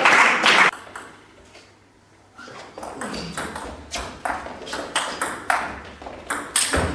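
Table tennis rally: a celluloid-type plastic ball ticking sharply off the table and the rubber-faced bats in a quick, even run of clicks, several a second. It is preceded by a loud burst of voices that stops under a second in.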